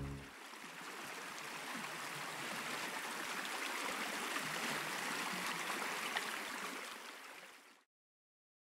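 Shallow stream water running over pebbles, a steady rushing with small splashes that fades out near the end.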